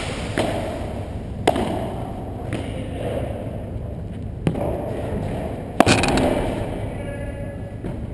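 Padel rally: a string of sharp hits as the ball is struck by the solid paddles and bounces off court and walls, about five in all, the loudest about six seconds in. The hits echo in a large indoor hall over a steady background hum.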